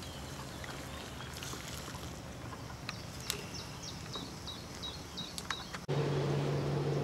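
Outdoor ambience with a few light metal clinks as a mess-tin pot is lifted off a Trangia spirit burner and set down, and a bird chirping several times in the middle. About six seconds in, a louder steady low hum takes over.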